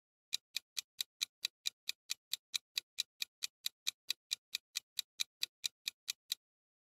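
Quiz countdown-timer sound effect: steady clock-like ticking, about four to five ticks a second, that stops shortly before the end.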